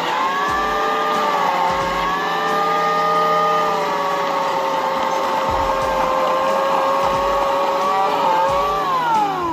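Portland 14-inch electric chainsaw running with a steady motor whine, its pitch sagging slightly at times as it cuts wood. It winds down with a falling whine near the end as the trigger is released.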